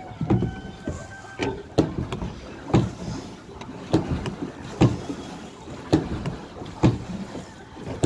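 Plastic pedal boat under way: a knock from its pedal and paddle mechanism or hull about once a second, over a low steady hiss of water and wind.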